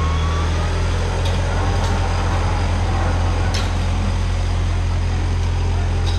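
Off-road 4x4 pickup truck engine running steadily at idle, a deep, even drone, with a few faint ticks in the first half.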